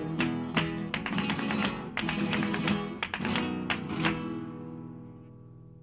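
Strummed flamenco guitar music with sharp, percussive strokes, ending about four seconds in on a final chord that rings out and fades away.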